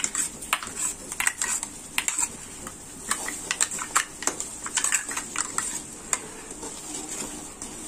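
Steel spoons scraping and clinking irregularly against a steel kadai as a thick paste is scraped in and stirred into hot masala, over a faint steady sizzle.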